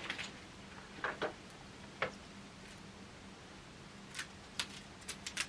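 Sparse small clicks and crinkles of board-game packaging being handled and opened, a few around one and two seconds in and a quick cluster near the end, over a faint steady hum.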